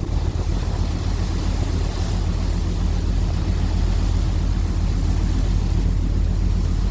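Steady low rumble of the passenger ferry Diagoras's engines heard from on board, with wind noise on the microphone.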